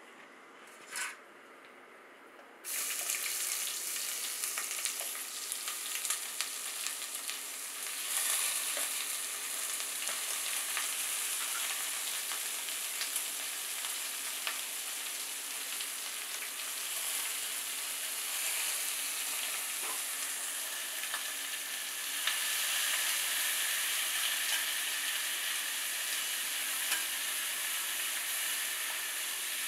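Sliced red onions dropped into hot oil in a pressure cooker pot, with a sudden loud sizzle about three seconds in. The onions keep frying with a steady sizzle while being stirred, with scattered light knocks of the spatula, and the sizzle grows a little louder later on.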